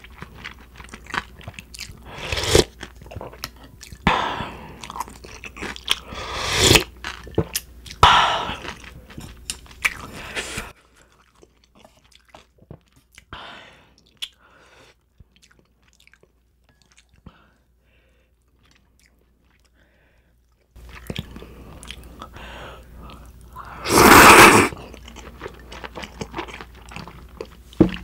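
Close-miked chewing and crunching of spicy cold buckwheat noodles and bulgogi, with many small mouth clicks and several louder bursts, the loudest near the end. A much quieter stretch comes in the middle.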